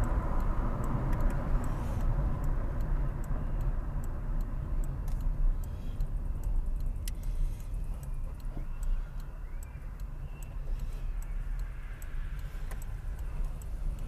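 Car driving along the road: a steady low engine and tyre rumble, with a light, regular ticking over it.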